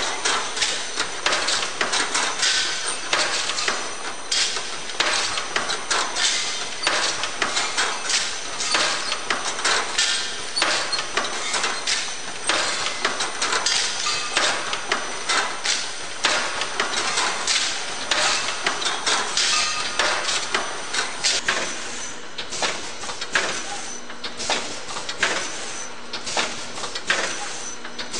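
Golpack VF 160 vertical packaging machine and its AL 20 conveyor feeder running: a dense, irregular clatter of small knocks and clicks as product drops through the stainless steel filling funnel.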